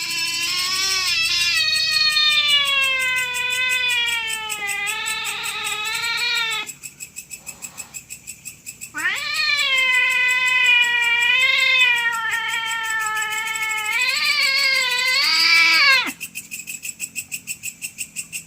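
Cats caterwauling in a territorial standoff: long, drawn-out yowls that waver up and down in pitch. One runs for about six seconds, and after a pause of about two seconds a second one runs for about seven seconds, climbing higher near its end before it cuts off.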